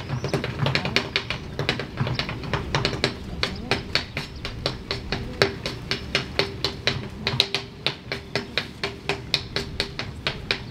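A dancer's feet tapping on a stage platform in a fast, sharp rhythm, about four taps a second, with backing music underneath.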